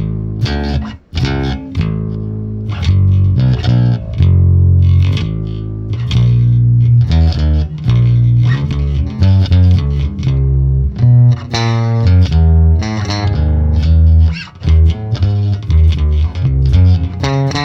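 Warwick Vampyre SN-5 five-string electric bass on its bridge pickup, played through a Neural DSP Quad Cortex's Gallien-Krueger bass amp model: a continuous run of plucked bass notes and riffs, starting right at the opening.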